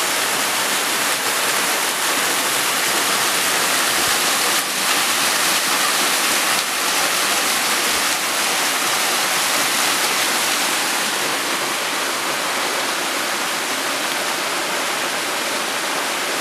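Waterfall rushing steadily close by, a dense, even hiss of falling water.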